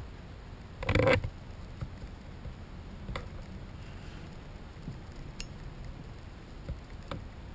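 Handling noise from a handheld action camera over a low steady rumble, with one brief loud scrape or rustle about a second in and a few faint ticks after it.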